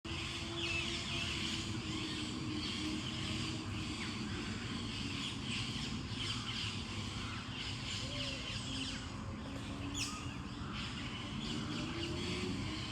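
Many birds chirping and singing together in a morning chorus of short, overlapping high calls, over a steady low background rumble.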